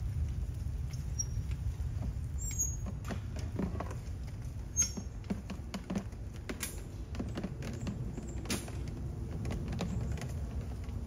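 Scattered knocks, creaks and rustles as a rolled-up vinyl inflatable is shifted on a four-wheeled garden cart, with one sharper knock about five seconds in, over a steady low rumble.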